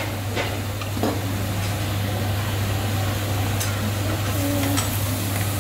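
Raw pork belly sizzling steadily on a hot dome-shaped tabletop grill plate, over a steady low hum, with a few light clicks of metal tongs.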